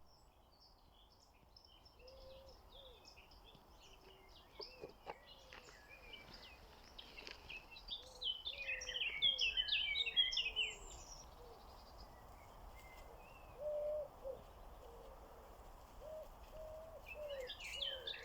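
Several wild birds singing and chirping, with a denser burst of song about eight to eleven seconds in and again near the end, over low repeated calls and faint outdoor background noise.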